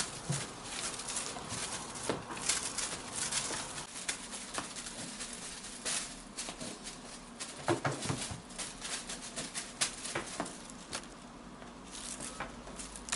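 Blue British Shorthair kittens chattering: quick, irregular clicks and little chirps, with the rustle of a feather wand toy. A few louder sharp clicks come just past the middle.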